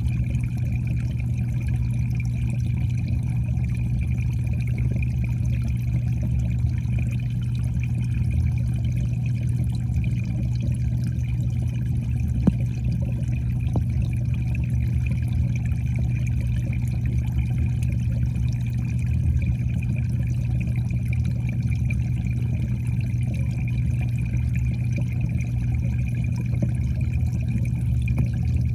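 Steady low hum and water noise heard underwater in a home koi pond, unchanging throughout, with one faint tick about twelve seconds in.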